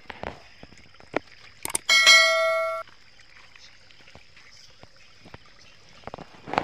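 A single bell-like ding about two seconds in, ringing for just under a second and then cut off abruptly: a notification-bell sound effect. Around it are a few faint clicks from the woven bamboo fish trap being handled.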